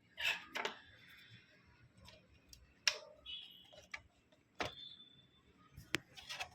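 Sharp plastic clicks and light scraping as the keyboard retaining latches of a Dell Inspiron laptop are pushed in with a small tool to free the keyboard. There are about five clicks at uneven intervals.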